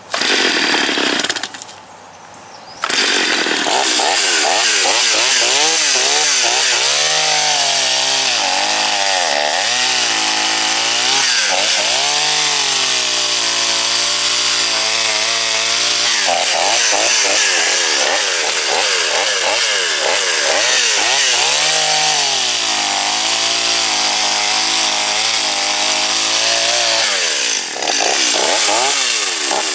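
Stihl 021 two-stroke chainsaw revving briefly, dropping back, then running at high throttle while cutting through a log, its engine pitch dipping and recovering over and over as the chain takes the wood. Near the end the engine eases off briefly, then revs again.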